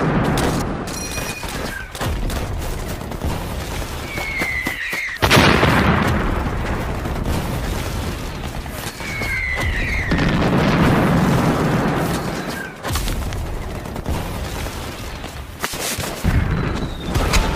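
Battle sound effects: a steady din of rifle and machine-gun fire with explosions. Twice a shell whistles down and a loud blast follows, the first about five seconds in and the second about ten seconds in.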